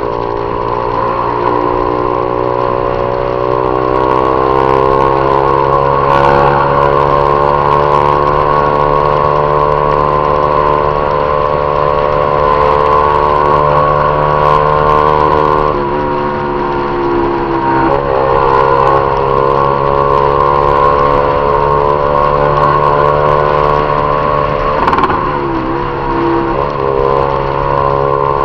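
Honda Titan 150's single-cylinder four-stroke engine running steadily at cruising speed. The revs climb gently at first, then dip briefly three times, around the middle and near the end, as the throttle eases off or a gear changes.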